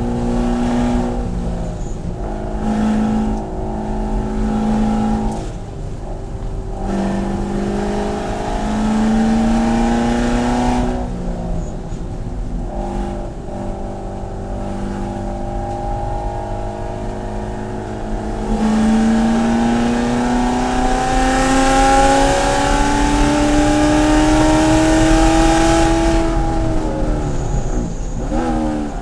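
Corvette C7's V8 engine under hard acceleration on track, its pitch climbing through the gears with short breaks at the shifts. Near the end comes one long pull rising in pitch with rushing wind noise, then the revs drop sharply as the driver lifts off.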